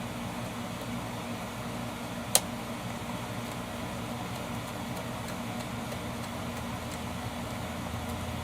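Steady low mechanical hum, with one sharp click about two and a half seconds in.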